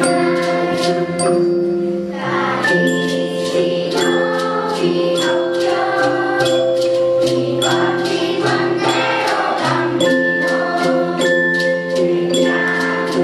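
Children's choir singing a sustained melody together, with hand percussion keeping a steady beat.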